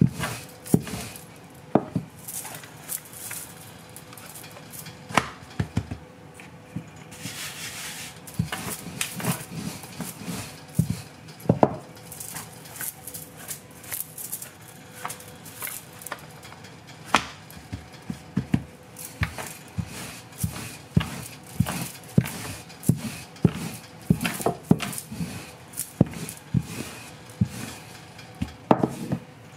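Wooden rolling pin rolling roti dough out on a marble countertop: an irregular run of light clicks and knocks as the pin rolls, is set down and picked up, and the dough is lifted and turned.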